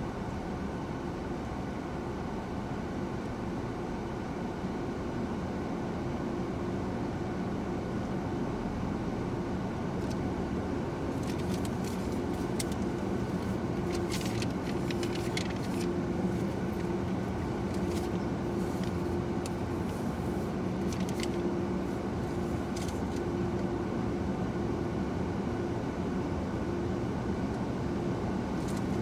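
Steady hum of automated car-wash machinery heard from inside a car's cabin, growing slightly louder as the car rolls into the tunnel. From about ten seconds in, scattered sharp ticks of water spray hitting the windshield.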